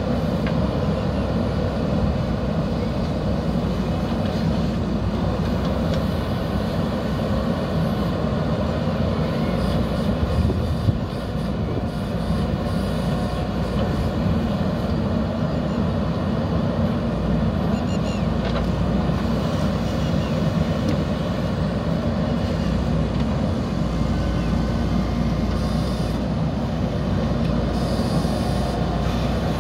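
JCB 3DX backhoe loader's diesel engine running steadily under load, a continuous low rumble, with one sharp knock about eleven seconds in.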